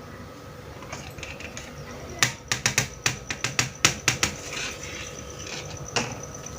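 Small plastic toy kitchenware pieces clicking and tapping together: a quick run of about a dozen sharp clicks in the middle, then one more near the end.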